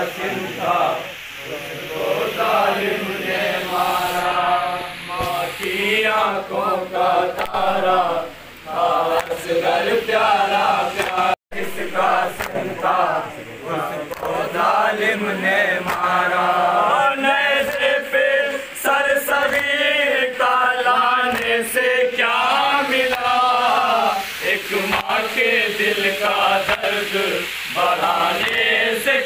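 A group of men chanting a noha, a Shia mourning lament, in unison with repeated melodic phrases. Faint chest-beating (matam) strokes sound under the voices.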